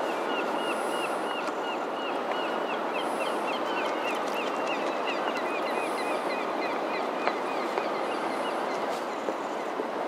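Steady rushing background noise, with a small bird singing a long run of quick repeated chirps over it that fades out about eight seconds in.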